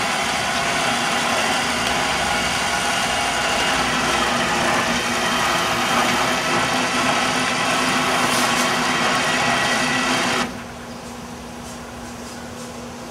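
The motorcycle lift's winch motor running steadily as it hoists the bike, then stopping suddenly about ten and a half seconds in. A low steady hum, the pickup's engine idling, carries on underneath.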